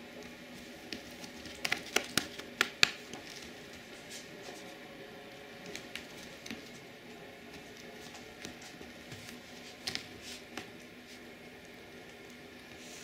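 A hand patting a Bengal cat's furry rump: a quick run of about six sharp pats around two seconds in, the last the loudest, then a few softer pats near ten seconds.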